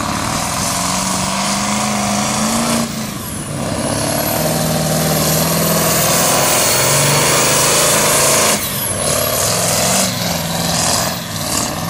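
Pulling tractor's engine running flat out under heavy load as it drags a weighted sled, with a dense high hiss over the engine note. The loudness dips briefly about three seconds in and again near nine seconds.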